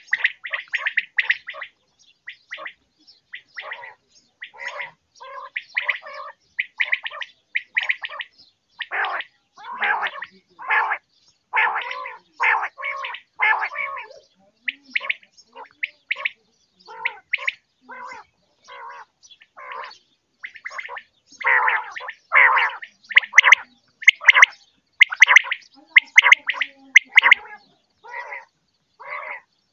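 Quail calling: a fast run of short, harsh calls repeating in bursts, loudest about three-quarters of the way through.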